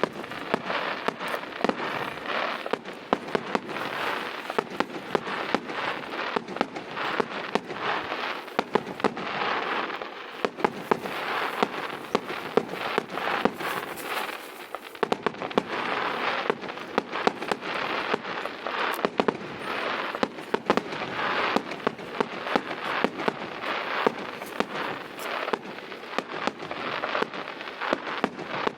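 Fireworks crackling densely, with many rapid sharp pops over a continuous crackle and occasional louder bangs.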